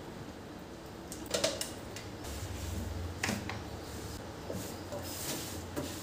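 Hand cleaning a stainless steel kitchen sink at the drain: a few light knocks and scrapes against the steel, about two seconds apart, with a low hum from about two seconds in.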